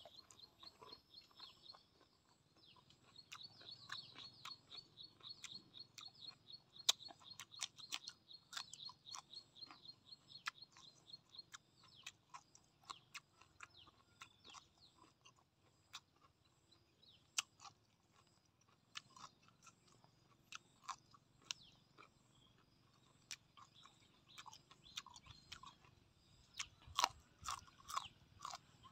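Close-miked chewing: soft wet clicks and smacks of a mouth chewing food, then louder crunchy bites near the end as a raw green vegetable is bitten into. A rapid, high-pitched ticking runs faintly behind it for a while in the first third.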